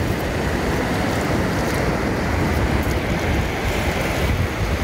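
Steady noise of sea waves breaking on the shore, mixed with wind rumbling on the microphone.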